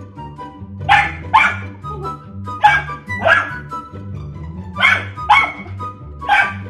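Golden retriever puppy play-barking at a rawhide bone: seven short, sharp barks, mostly in quick pairs.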